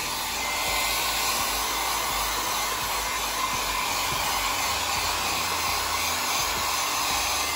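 Handheld electric hair dryer running steadily, a constant rush of blown air.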